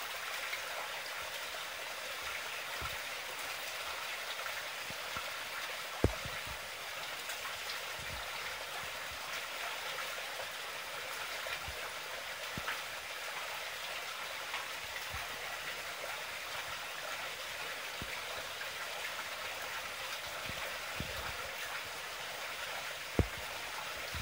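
Steady splashing and trickling of water flowing into a garden koi pond, with two sharp clicks, one about a quarter of the way in and one near the end.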